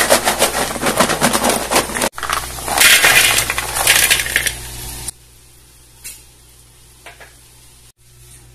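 Fried potato fries rattling and clattering as they are shaken with orange seasoning powder in a lidded plastic container and tossed in a glass bowl, a dense run of clicks and then a louder shaking. It cuts off abruptly about five seconds in, leaving quiet with a couple of faint clicks.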